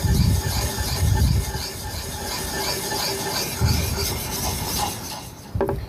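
A wet coarse-grit sharpening puck rubbed in circular strokes on the bevel of a drawknife, a steady scraping grind, with three low rumbles: at the start, about a second in and near four seconds.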